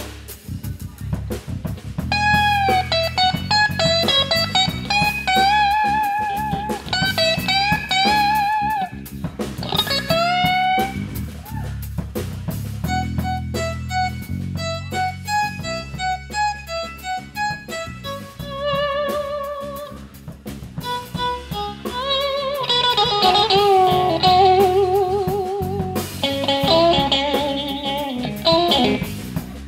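Live electric blues trio playing an instrumental passage: an electric guitar takes a lead solo of bent, vibrato-laden single notes over electric bass and a drum kit.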